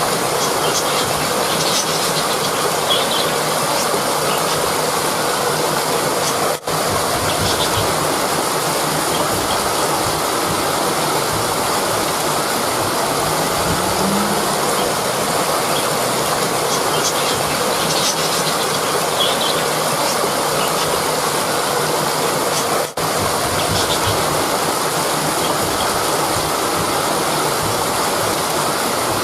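Rushing river water, a steady loud flow, cutting out for an instant twice.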